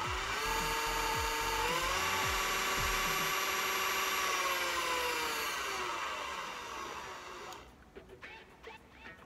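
KitchenAid cordless hand mixer running with beaters in the air and no load, a steady motor whine. It steps up in pitch twice in the first two seconds as the speed is raised, then glides down over a few seconds and stops about three-quarters of the way through.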